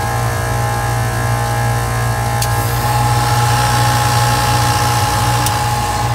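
Copeland digital scroll compressor running: a steady low hum with a higher whine that grows louder about three seconds in, and two sharp clicks about three seconds apart.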